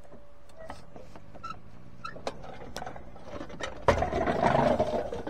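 Scattered knocks and clicks, then a sudden loud bang about four seconds in and a second of heavy metallic clatter and rumble as a wing mower rolls down a metal ladder ramp off a truck bed.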